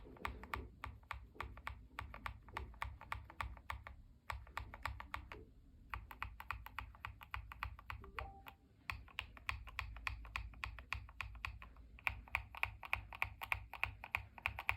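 Mechanical keyboard switches in a Tester 68 keyboard kit typed on in fast runs of keystrokes, with short breaks about four, six and eight and a half seconds in.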